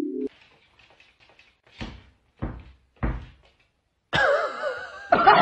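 Three dull thuds about half a second apart, then a loud wavering voice-like sound that starts about four seconds in and grows louder near the end.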